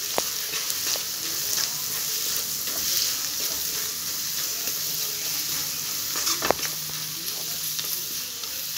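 Sliced onions and green chillies sizzling in hot coconut oil as the ground spice masala is fried in with them in a wok. A wooden spatula stirs, scraping and knocking against the pan, with one sharper knock about six and a half seconds in.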